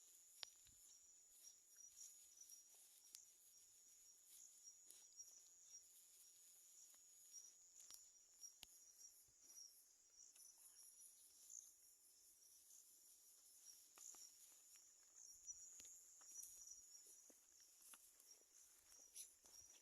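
Faint, steady high-pitched chirring of insects, with scattered faint clicks.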